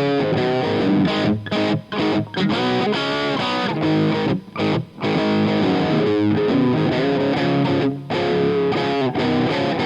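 Electric guitar played through an Omega Series Micro battery-powered micro amplifier, taken direct from its speaker output with a Greenback guitar-cabinet impulse and reverb added. A riff of changing notes, broken by several short stops.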